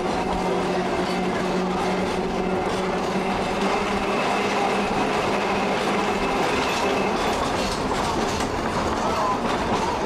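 Trolley car running along the track, heard from on board: a steady rolling noise with a low hum that fades about halfway through.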